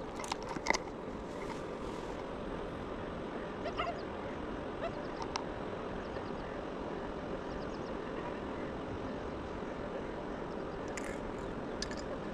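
Steady outdoor background hiss with a few scattered sharp clicks, the loudest under a second in and a cluster near the end.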